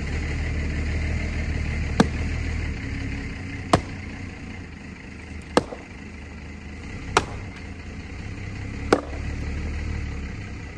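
Axe striking the edge of a large sawn stump, splitting off chunks of firewood: five sharp chops about every second and a half to two seconds. An engine runs steadily underneath.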